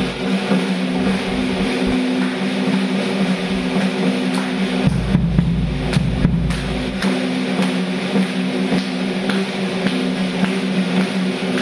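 Drum kit played with sticks: a dense run of strokes on the drums and cymbals over a steady low ringing tone, with a deep low rumble partway through.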